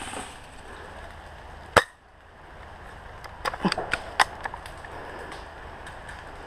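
A single sharp airsoft gun shot just under two seconds in, followed about a second and a half later by a quick cluster of clicks and snaps.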